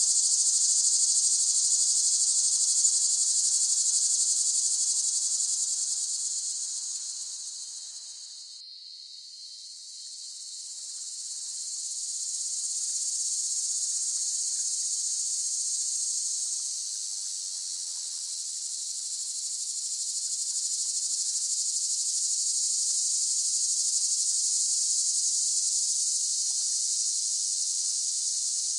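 Cicadas calling in one continuous high-pitched drone. It fades down about eight seconds in and swells back up over the next few seconds.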